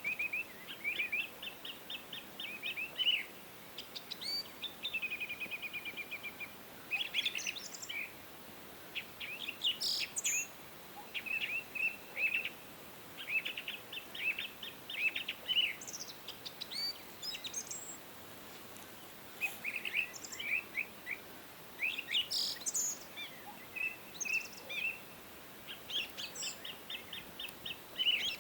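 Songbirds chirping and singing in quick runs of short, high notes, several phrases overlapping and repeating throughout, over a faint steady background hiss.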